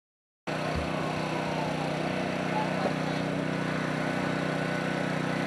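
Engine running steadily at idle, an even, unchanging hum. It starts abruptly about half a second in, after silence.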